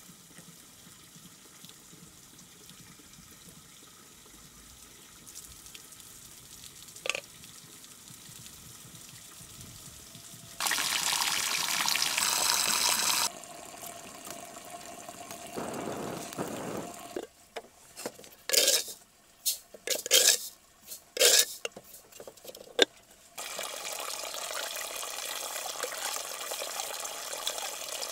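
Several sounds in turn: a steady rushing noise for a few seconds, a run of loud, irregular cracks in the middle, then, from about two-thirds of the way in, a steady stream of water pouring from a spout into a clay water tank.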